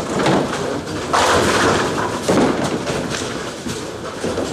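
Bowling alley din: bowling balls rolling and pins crashing on the lanes, with sudden heavy thuds about a second in and again about a second later.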